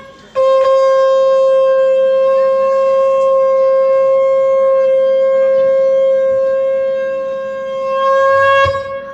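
Conch shell (shankh) blown in one long, steady note, held for about eight seconds with a slight swell just before it cuts off near the end. It is sounded at the close of the aarti.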